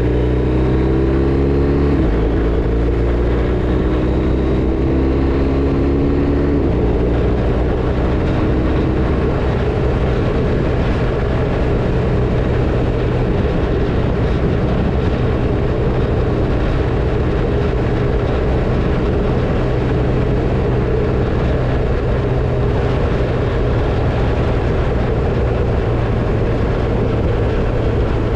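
BMW R1250RT's boxer-twin engine accelerating through the gears, its pitch rising and dropping at upshifts about two and six and a half seconds in, then settling into a steady cruise under a strong rush of wind.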